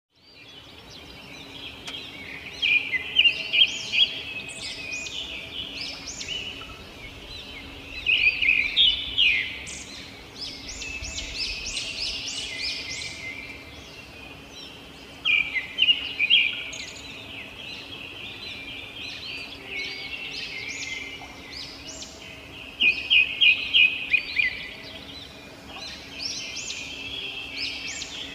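Robin song: phrases of quick, high whistled and chirped notes, rising in loud bursts of rapidly repeated notes about every six to eight seconds.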